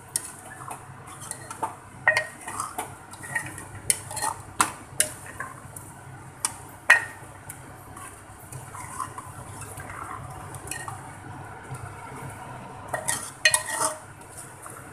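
Metal spoon scraping and clinking against an aluminium cooking pot as thick mutton curry is stirred. The clinks come in irregular bunches, busiest in the first few seconds and again near the end.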